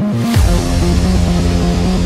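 Electronic background music with a stepping synth melody; about half a second in, a swoosh leads into a heavy bass hit, and a deep bass then runs under the melody.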